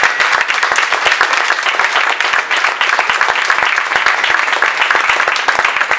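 Audience applauding: many people clapping at once, a dense, steady patter.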